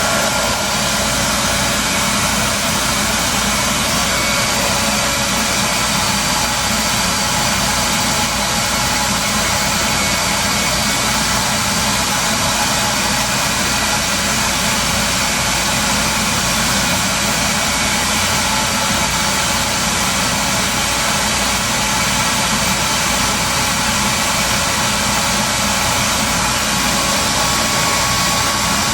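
RevAir reverse-air hair dryer running steadily at maximum suction on low heat, a constant loud whoosh of drawn air with a faint motor whine.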